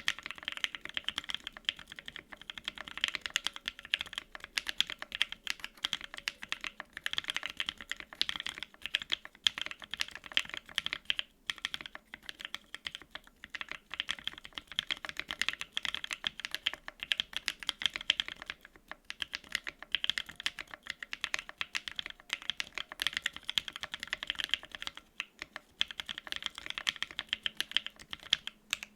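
Continuous fast typing on a custom mechanical keyboard with lubed Tangerine 62g linear switches on a polycarbonate plate, GMK double-shot ABS keycaps and no case or plate foam, each keystroke a short click with brief pauses between bursts.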